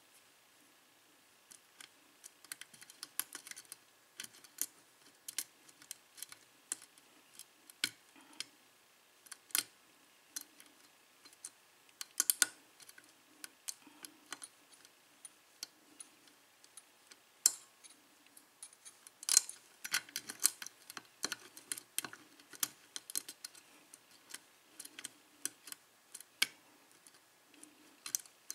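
Steel lock pick clicking and scraping against the pin stack of a Russwin KIK six-pin lock cylinder under tension-wrench pressure during single-pin picking: many small, irregular metallic clicks as pins are lifted and set.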